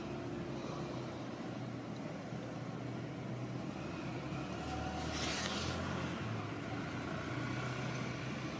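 Steady low hum of a motor vehicle's engine running, with a brief hiss about five seconds in.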